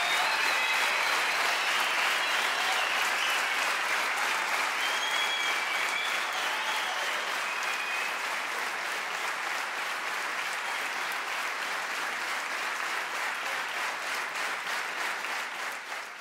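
Large theatre audience applauding, steady clapping with a few high whistles over it in the first half. It eases slightly toward the end.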